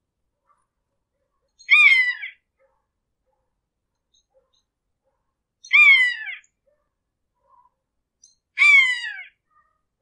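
Hawk screeching three times, each a short screech that falls in pitch, spaced three to four seconds apart.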